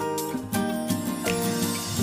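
Background music of plucked guitar notes over held tones, a new note every half second or so.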